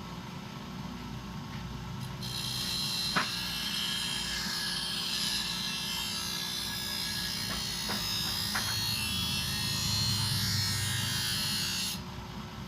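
Bench grinder running with a steady hum. About two seconds in, a thickness planer blade is pressed against the wheel and a high grinding hiss starts, with a few sharp ticks, then stops abruptly near the end when the blade is lifted off.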